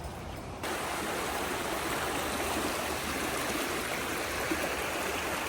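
A stream flowing with a steady, even rush of water, starting abruptly about half a second in.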